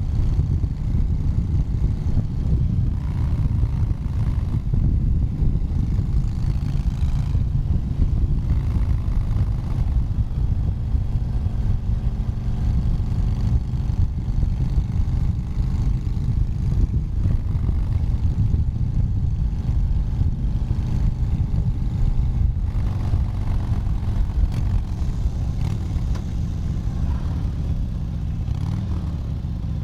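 Harley-Davidson V-twin motorcycle engine running on a ride, its pitch rising and falling with the throttle; it eases off slightly near the end.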